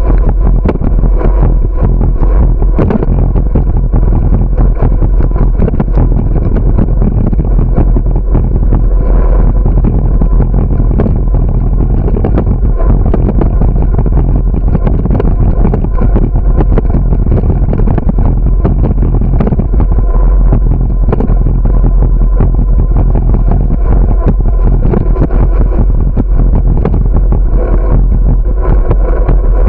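Loud, steady wind and rolling noise on the microphone of a camera carried on a moving bicycle: a deep rumble with frequent small bumps and rattles as it rides over a concrete sidewalk, with car traffic on the road alongside.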